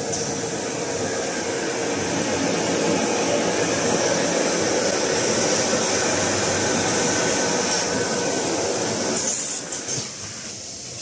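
TP21D toilet roll bundling machine running: a steady mechanical hum with hiss, with a short, louder burst near the end, after which it goes quieter.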